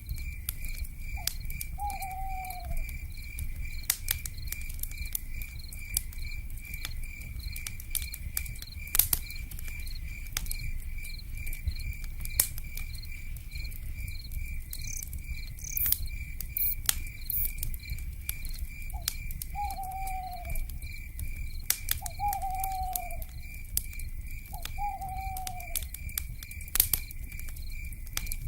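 Crackling fire with scattered sharp pops over a low rumble, a steady pulsing insect trill, and an owl giving short descending hoots: one early, then three more, evenly spaced, in the second half.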